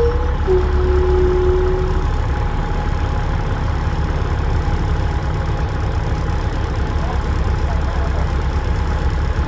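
Dennis Trident double-decker bus's diesel engine running steadily, heard on board as a heavy low rumble with a thin steady whistle, the turbo whistle these buses are known for. A short higher squeal sounds over it in the first two seconds.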